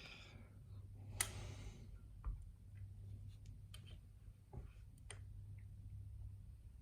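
A few faint, scattered metallic clicks and taps of a padlock and small lock-picking tools being handled, over a steady low hum.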